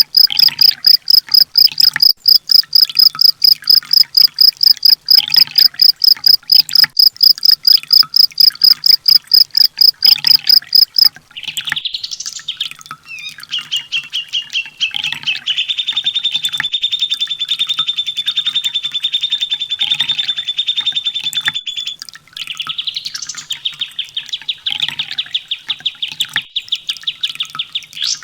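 Recorded sunbird song played as a masteran track. About the first eleven seconds are a loud run of sharp, very high notes repeated four to five times a second. Two long, fast, high trills follow, each opening with a rising sweep.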